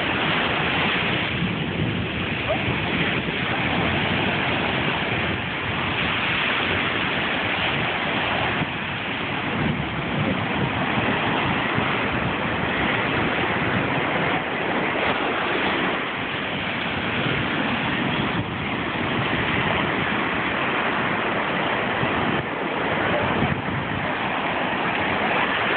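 Surf on a choppy sea: small waves breaking and washing up the sand, a steady rushing noise that swells and eases slowly.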